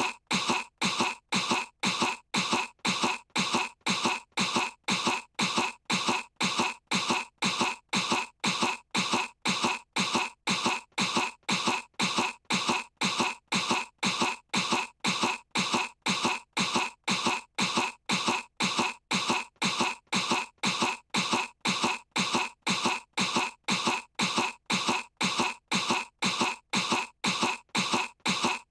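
A cartoon girl's put-on cough, feigning sickness: one short cough sound looped over and over at an even pace of a little more than two coughs a second.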